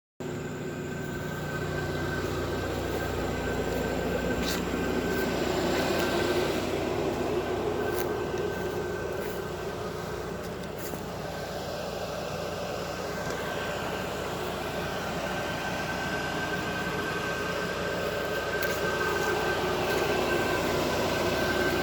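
Two-stroke brush cutter engine running steadily at high revs, with a steady high whine and small rises and falls in speed.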